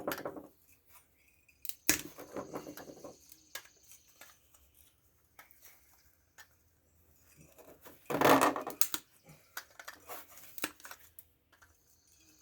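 Hand tools and small metal and plastic parts clicking and clattering in short, scattered bursts as a fan blade is worked off a hair dryer's small fan motor, with a louder cluster of clatter about eight seconds in.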